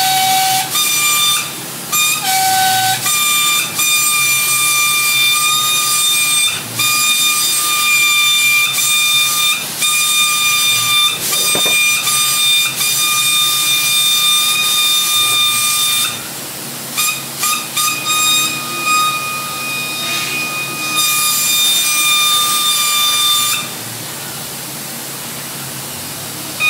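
Compressed-air paint spray gun hissing with a steady high whistle while its trigger is held, laying on base coat in several spells: a long pass of about thirteen seconds, then a few short bursts, stopping a few seconds before the end.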